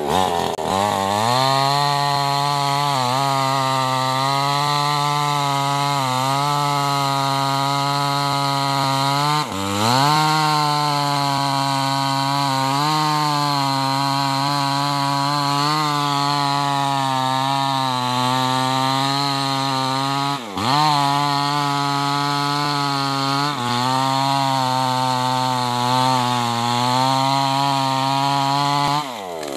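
Tuned-up New West 588 two-stroke chainsaw at full throttle, cutting into a hardwood tree trunk. The engine note sags each time the chain bites harder, twice dropping sharply and revving back up, and near the end the throttle is let off.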